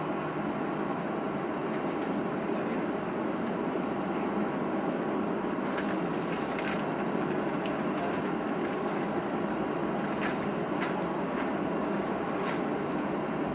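Cabin noise inside a taxiing Boeing 737: a steady hum from the engines and airframe, with scattered clicks and rattles, a cluster about six seconds in and more around ten to eleven seconds.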